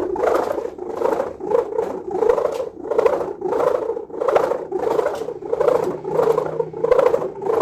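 Snore-type sendaren kite hummer of plastic film and gift ribbon on a 3.5-metre bow being tested. Its hum swells and fades about twice a second. The maker judges its ribbon and film slightly too large.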